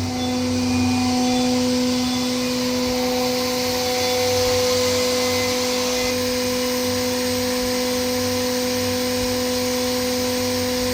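Spindle of a Haas VF-6SS vertical machining center running at a steady high speed: an even whine over a constant hiss.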